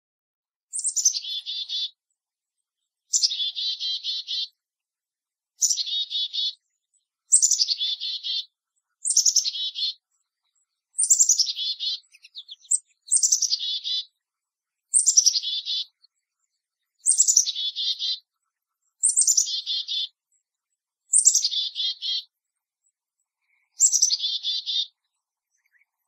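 Black-capped chickadee giving its chick-a-dee-dee-dee call about a dozen times, roughly every two seconds. Each call is a high opening note followed by a string of buzzy dee notes.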